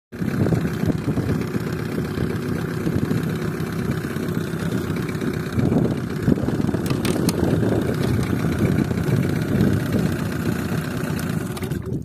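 Mercury 15 hp two-stroke twin-cylinder outboard motor running steadily. Just before the end it cuts out as the kill-switch lanyard is pulled from its switch.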